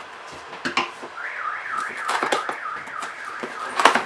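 Sharp clicks, knocks and rustles of a cardboard keyboard box being opened and handled, the loudest near the end. Behind them an electronic alarm warbles up and down about three times a second, like a car alarm, from about a second in until shortly before the end.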